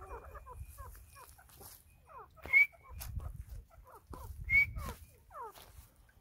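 Francolin (teetar) calling: a run of short, quick, downward-sliding chirps, several a second, broken twice by a loud, sharp high note about two seconds apart, the loudest sounds here, over a low rumble.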